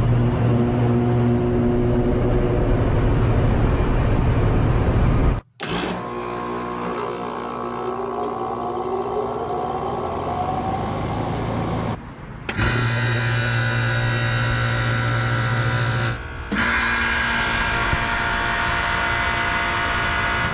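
HVAC units starting up in four short clips cut one after another: steady motor hum and whir, with a rising whine as a fan spins up about seven to ten seconds in.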